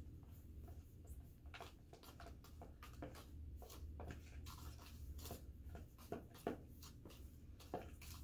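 Spoons stirring in plastic bowls, one of them holding fine craft sand and cornstarch being mixed together: faint, irregular scrapes and light clicks of the spoons against the bowls.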